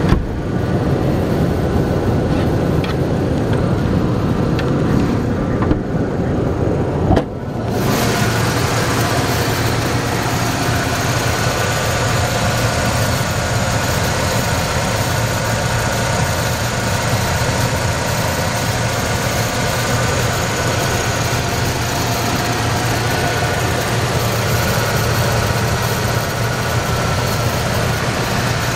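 1996 Ford F-150 pickup engine idling steadily, heard over its open engine bay. There is a short dip about seven seconds in, after which the idle sounds brighter and closer.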